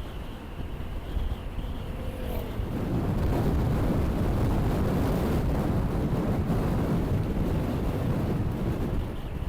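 Wind buffeting an action camera's microphone over a motorcycle's engine and road noise, a heavy rumble that grows louder about three seconds in.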